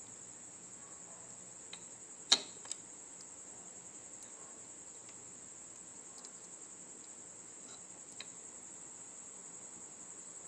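A steady high-pitched cricket trill, with one sharp click about two seconds in and a few faint ticks as a resistor lead is pulled from and pushed into a plastic breadboard.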